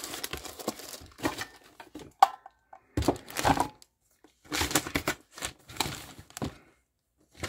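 Plastic packaging bags crinkling and rustling in irregular bursts as parts are handled in a styrofoam shipping box, with one sharp click about two seconds in.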